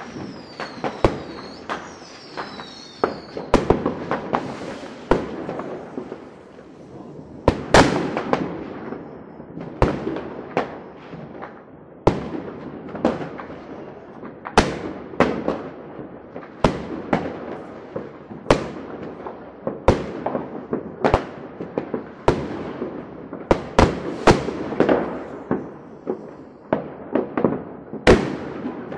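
Fireworks going off: an irregular, rapid string of sharp bangs and crackles, with several whistles gliding in pitch in the first few seconds.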